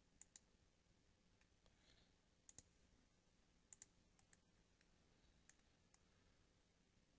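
Computer mouse clicking faintly: about ten short clicks, most of them in quick pairs.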